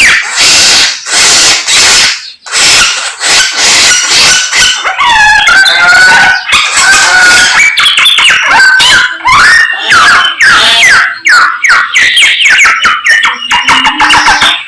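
Samyong songbird singing loudly and without pause: a fast, varied stream of chirps, trills and whistled notes sliding up and down in pitch.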